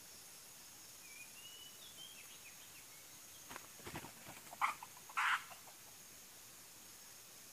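Steady high-pitched insect tones and a few thin bird chirps, broken about halfway through by a cluster of short, sharp noisy sounds, the loudest two close together near the five-second mark.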